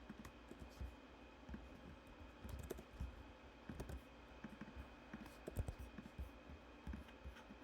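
Faint, irregular clicking and tapping of typing on a computer keyboard.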